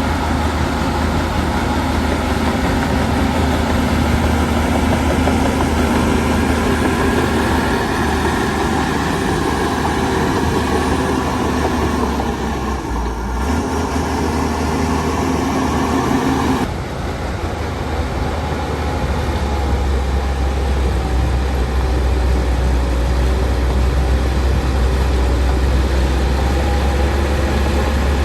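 Heavy diesel engine of a Shantui DH17 C2 bulldozer running steadily while working. About seventeen seconds in the sound changes abruptly to a steadier low drone with less of the higher clatter.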